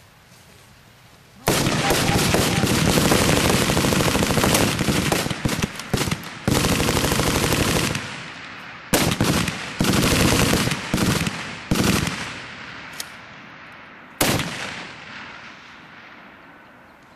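Automatic gunfire from several weapons on a firing line. It starts suddenly about a second and a half in, runs unbroken for about six seconds, then breaks into short bursts and single shots that echo off across the range, with a last burst a few seconds before the end.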